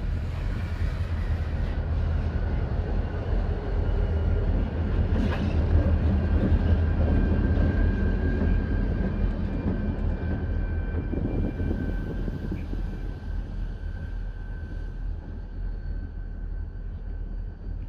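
Freight train rolling past with a heavy low rumble that swells about midway and then slowly fades, and a thin steady squeal from the wheels over it.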